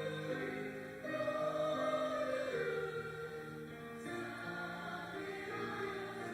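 Church choir singing a hymn in parts, the voices holding long notes that change in steps, swelling a little about a second in.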